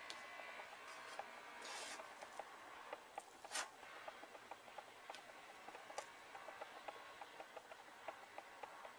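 Quiet room tone with faint rubbing and rustling as hands smooth a strip of tape on a motorcycle fuel tank. There is a brief rustle about two seconds in, another about three and a half seconds in, and scattered faint ticks throughout.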